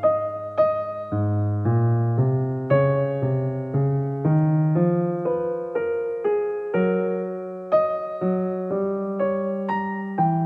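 Background piano music: unhurried notes and chords struck about twice a second, each ringing and fading before the next.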